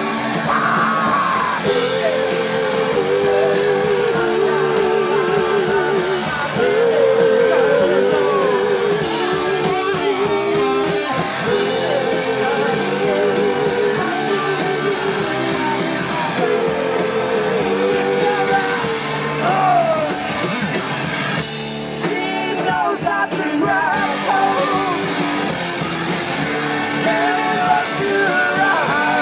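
Live rock band playing loud, with electric guitar carrying a wavering riff that repeats every four to five seconds.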